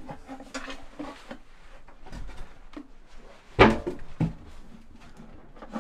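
Knocking and handling sounds of something like a cupboard or hatch being moved: light clicks, then a sharp knock about three and a half seconds in and a smaller one just after.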